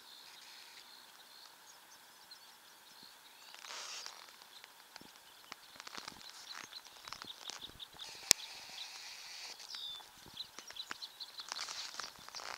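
Faint outdoor ambience: a light hiss with scattered small clicks and crackles, and one sharp click about eight seconds in.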